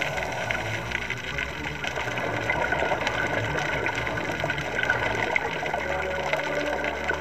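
Underwater ambience picked up by a diver's camera: a steady hiss with fine crackling and a faint hum. Near the end a steady low tone comes in.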